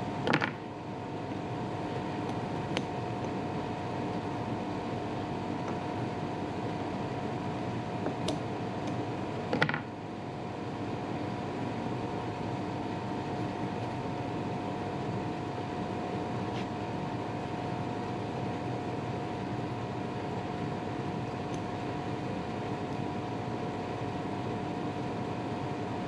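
Steady machine hum with a few steady tones in it, like a running fan, and two soft knocks from tools and the tyre being handled, about half a second in and just before ten seconds in.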